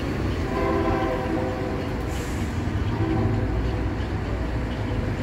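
City bus diesel engine rumbling as it passes, with a steady pitched tone heard twice, about half a second in and again about three seconds in.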